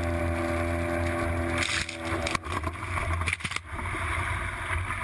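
Boat motor running steadily, with a few knocks about two and a half and three and a half seconds in.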